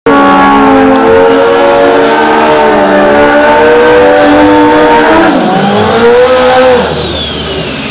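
Pro Street drag motorcycle doing a burnout: the engine is held at high revs, drops in pitch about five seconds in, then rises again, over the noise of the spinning rear tyre.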